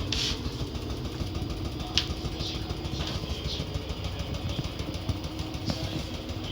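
Washing machine running: a steady low motor rumble with a steady hum. A few short, sharp high clicks sit on top, the sharpest about two seconds in.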